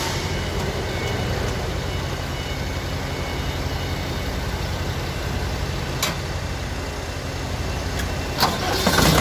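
Diesel engine idling steadily with a low hum. There is a sharp click about six seconds in and another near the end, and the engine gets louder just before the end.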